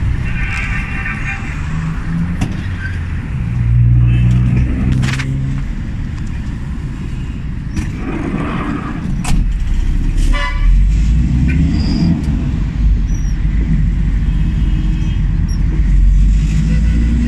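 Steady engine and road rumble heard from inside a moving microbus, with car horns tooting in the traffic outside: one just after the start, another about ten seconds in, and fainter ones later.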